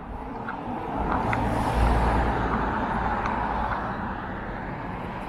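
A road vehicle passing: its engine and tyre noise swells about two seconds in, then slowly fades.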